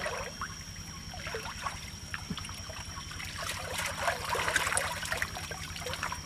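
Muddy water sloshing and trickling as a man wades chest-deep and shifts a long pipe, busiest in the middle of the stretch. Underneath, a motor runs steadily with an even low pulse.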